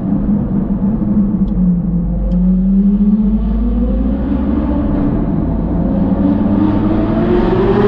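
Car engine accelerating in a road tunnel: its pitch dips for about two seconds, then climbs steadily through the rest of the run.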